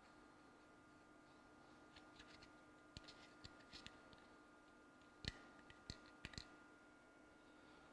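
Faint handling noise: a scattering of small clicks and taps from parts of the turntable mechanism being worked by hand, the sharpest a little past halfway, over a steady faint hum.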